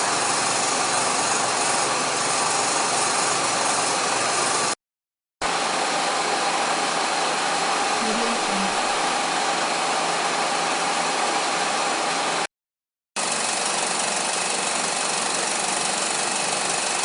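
An old 35mm motion picture projector running steadily: the continuous mechanical running noise of film being drawn through the mechanism, carrying a constant hum-like tone. It breaks off into dead silence twice, briefly, about five seconds in and again about twelve and a half seconds in, where one recording gives way to the next.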